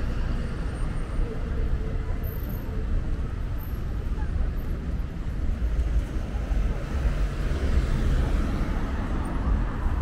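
Busy city street traffic: a steady rumble of passing cars, with voices in the background.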